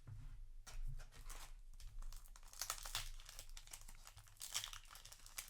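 Foil booster pack wrapper crinkling and tearing as it is handled and ripped open, a dense run of crackles starting about a second in.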